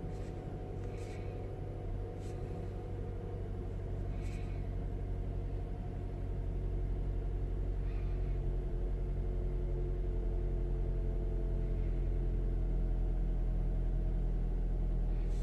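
2009 Mazda 3's four-cylinder engine idling roughly, with a few faint high clicks in the first seconds and the level rising a little about six seconds in. The rough idle comes with check engine code P0123, a throttle position sensor circuit high input fault.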